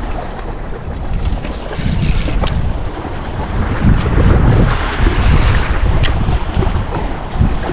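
Strong wind buffeting the microphone in uneven gusts, over waves washing against a rocky shoreline.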